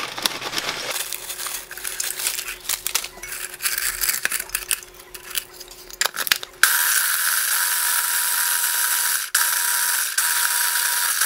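Ghost pepper tortilla chips rattle into the plastic bowl of a mini food chopper from a crinkly bag, with clicks as the lid is pressed on. About six and a half seconds in, the chopper's electric motor starts and runs steadily, grinding the chips to crumbs, with a brief stop a little after nine seconds.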